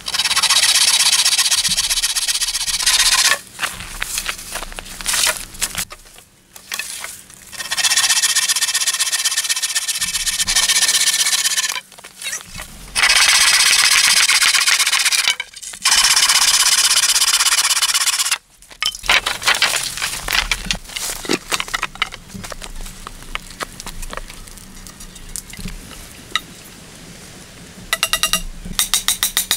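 Bow saw cutting through a round wooden pole: rapid rasping strokes in several long bouts, each a few seconds, with short pauses between. After the cut, quieter scattered clicks and knocks, then a fast even run of ticks near the end.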